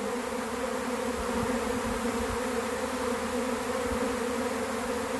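A swarm of honey bees buzzing, a steady, even drone of many wings as the swarm settles and clusters in a tree.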